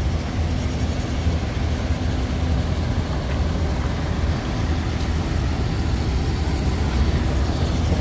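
Steady low rumble of heavy diesel machinery running, from the quarry's dump trucks and wheel loader.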